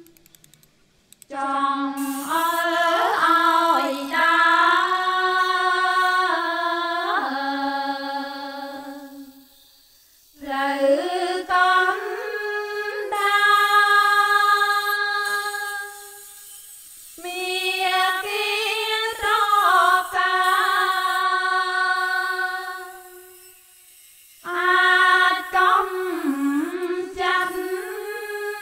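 Background music: a slow sung melody in four long phrases with held, gliding notes, separated by short pauses.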